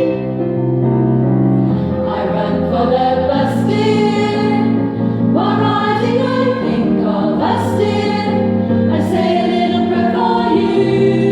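Women's choir singing a sustained, slow-moving melody, the voices held with vibrato, sibilant consonants cutting through every second or two.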